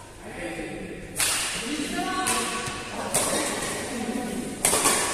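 Badminton rackets striking the shuttlecock in a rally, three sharp hits about a second apart to two seconds apart, each echoing around a large sports hall.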